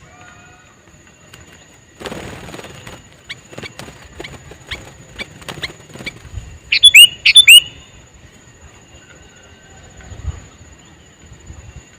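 Sooty-headed bulbul calling: a run of short chirps, then two loud, sharp calls close together about seven seconds in, over a faint steady high-pitched tone.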